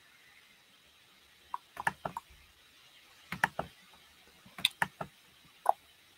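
Handling noise: scattered short clicks and light knocks, in about five small groups, as a camera is handled and adjusted.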